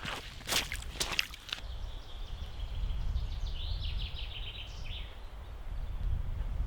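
Wind buffeting the microphone as a steady low rumble, with a few sharp crackles in the first second and a half. A small bird sings a rapid trill of repeated high notes about halfway through.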